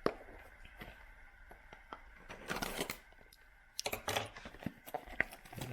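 Trading card box and cards being handled: scattered light clicks and taps, with two short bursts of rustling partway through.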